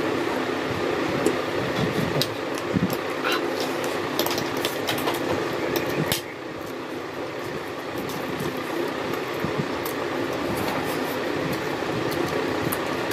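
People eating instant noodles with forks: short clicks of forks on the trays and noodle slurping over a steady rushing background noise that drops a little about six seconds in.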